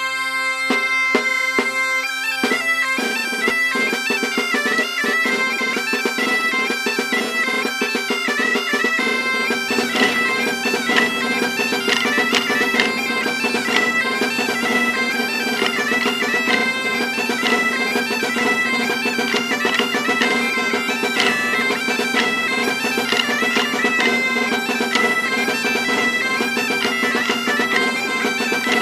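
Folk dance tune played on a reed wind instrument over a steady low drone, with the dancers' wooden sticks clacking together in a regular rhythm.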